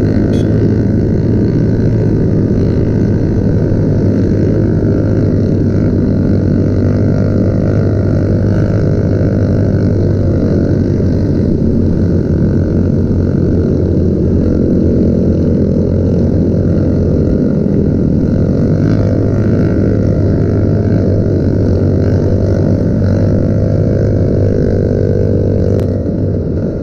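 Kawasaki KLX trail bike's stock single-cylinder four-stroke engine and stock exhaust running steadily under way, easing off slightly near the end.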